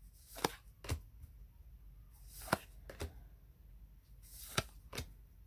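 Gilded tarot cards being flipped one at a time by hand. Each card gives a short, light flick or slap as it slides off the deck, about six times at irregular intervals.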